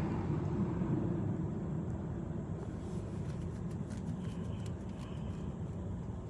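Steady low rumble of outdoor background noise, with a few faint clicks in the second half.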